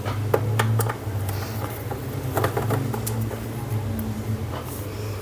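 Scattered light clicks and taps of a hand screwdriver and plastic projector casing as the case screws are removed, over a steady low hum.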